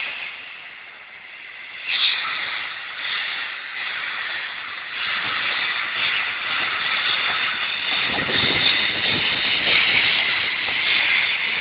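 Narrow-gauge steam locomotive moving slowly and venting steam with a loud, steady hiss from around its cylinders. The hiss swells about two seconds in and grows louder again from about five seconds.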